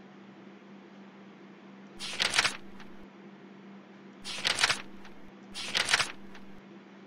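Three short bursts of rapid clicking from a computer mouse's scroll wheel being spun, about two seconds in, then twice more a little over a second apart, over a steady low electrical hum.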